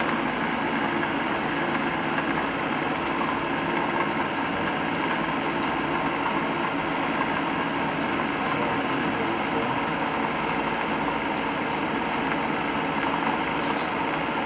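Standard Modern 1333 gear-head lathe running steadily with its spindle in the medium speed range: an even mechanical hum from the headstock gearing and motor.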